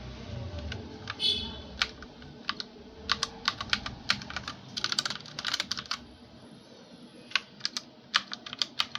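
Keys on a mechanical gaming keyboard with linear red switches being pressed: irregular clacks, coming in quick flurries around the middle and more spaced out near the end.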